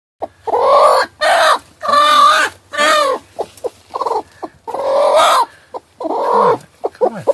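Chickens clucking and squawking: about nine loud calls, each about half a second long, coming close together. The last two drop in pitch.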